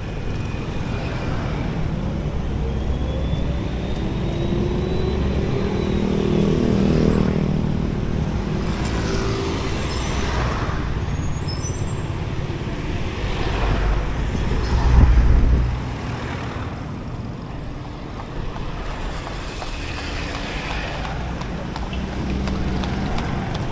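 Street traffic: motor vehicles passing one after another, their engines rising and falling as they go by. The loudest is a low rumble passing about fifteen seconds in.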